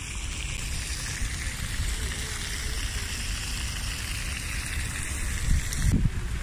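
Fountain jet splashing steadily into its stone basin, with low wind rumble on the microphone. A low bump comes near the end, and the splashing drops away just after it.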